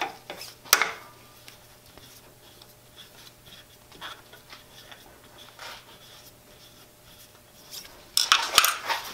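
Hex key turning the set screws out of a Jet JWL-1642EVS lathe's cast handwheel: small metal clicks and faint scraping, with a sharp click just under a second in. Louder rubbing and knocking near the end as the handwheel is handled.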